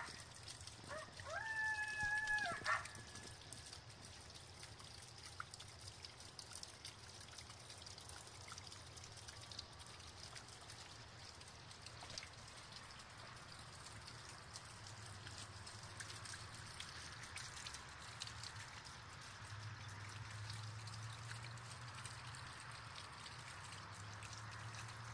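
A single coyote howl about a second in: the note rises, holds steady for about two seconds, then drops away. After it there is only a faint steady hiss of night background with a low hum.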